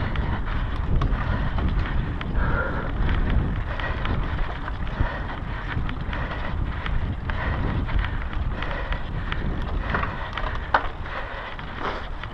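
Mountain bike riding fast over dirt singletrack: wind buffeting the action camera's microphone over tyre noise, with frequent rattling clicks from the bike and one sharper knock near the end.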